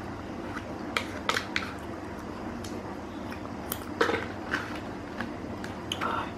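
Eating a chocolate sundae with a plastic spoon in a plastic cup: three sharp clicks about a second in, then softer scrapes and eating sounds.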